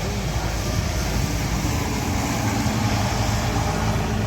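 Heavy vehicle engine, most likely a bus, running close by: a steady low rumble with no horn.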